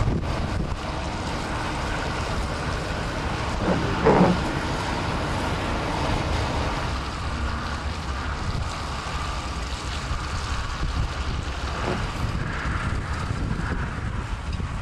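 Strong blizzard wind buffeting the microphone as a steady noise, with a brief louder sound about four seconds in.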